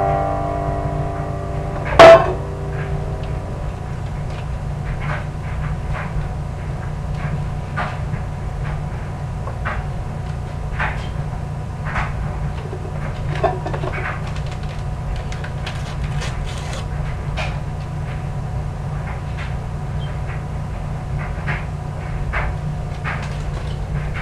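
Off-camera kitchen clatter during cooking: one sharp, loud knock about two seconds in, then scattered light clicks and knocks of utensils, dishes or cupboard doors over a steady low hum.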